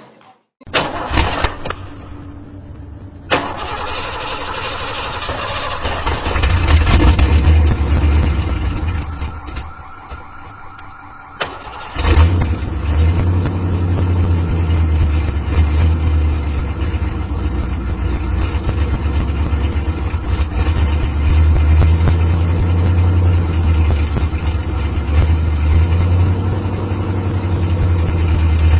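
A motor vehicle's engine starting and running, its pitch rising for a few seconds, dropping back near the middle, then picking up again suddenly and running steadily.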